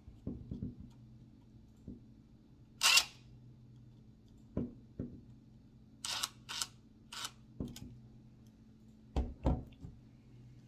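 Hand-tool handling on a small RC-truck screw: light clicks of a hex driver bit and parts, one loud sharp rattling burst about three seconds in, a few crisp clicks a few seconds later, and two low thumps near the end as the cordless drill is set down on the table. A faint steady hum runs underneath.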